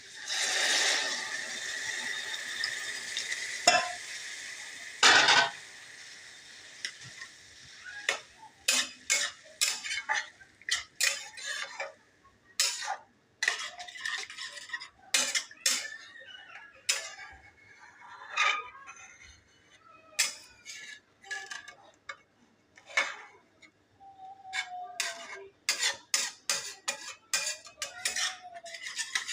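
Food sizzling in hot oil in a pan for the first several seconds, then a spoon or spatula repeatedly knocking and scraping against the pan as the food is stirred.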